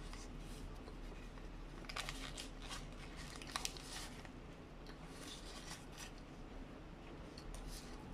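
A person chewing a McDonald's Signature Collection burger with mouth closed, heard as clusters of mouth clicks and crackles, busiest about two, three and a half, and five seconds in. The burger's paper wrapper rustles in the hands.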